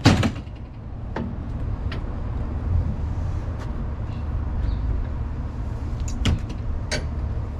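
A loud metal clank right at the start, then a few sharp knocks and clicks as a folding steel bed extender on a utility vehicle's tailgate is swung out and unfolded. A steady low rumble runs underneath.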